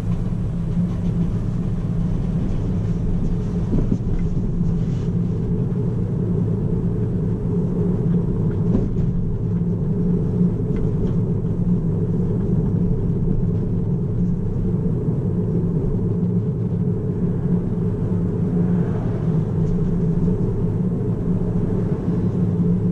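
Steady low tyre and road rumble inside the cabin of a moving Tesla Model 3. The car is electric, so there is no engine sound, only the tyres on the road.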